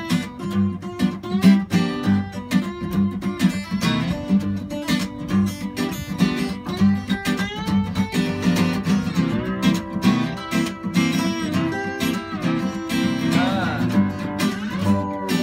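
Acoustic guitar played lap-style with a slide: picked notes that glide in pitch, most plainly near the end, over a steady strummed guitar rhythm in an instrumental break of an acoustic song.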